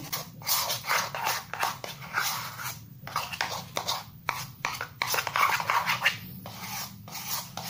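Metal spoon stirring a thick, sticky glue-based slime mixture in a ceramic bowl, an irregular run of scrapes and clicks against the bowl.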